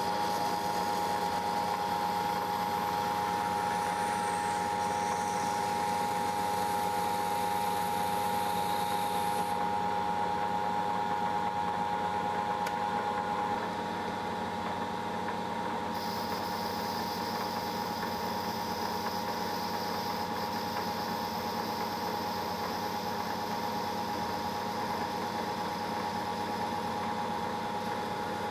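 Lathe running steadily while a white plastic bush is drilled and turned: a constant whine with a hum beneath, a little quieter from about halfway.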